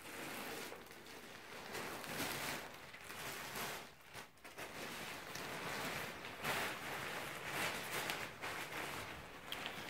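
A plastic bag and the thin fabric of a deflated inflatable Christmas moose rustling and crinkling as they are handled, pulled apart and unfolded, in uneven swells.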